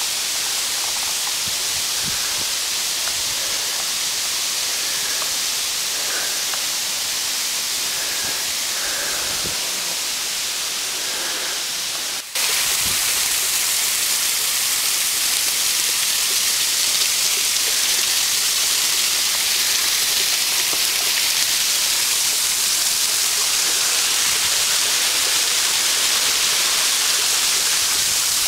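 Water cascading down a steep rock face, a steady rushing hiss. The sound breaks off briefly about twelve seconds in, then comes back a little louder.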